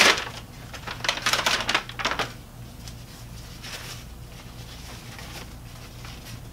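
Packaging pouch of a disposable template grid peeled open with a sharp rip, followed by about a second of crackly crinkling of the wrapper, then only faint handling rustles.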